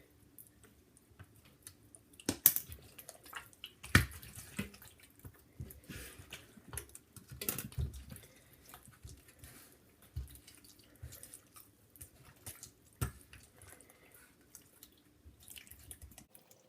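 Sticky borax slime being squeezed and kneaded by hand, making irregular wet squelches and clicks, with a few sharper pops about two and a half, four and thirteen seconds in.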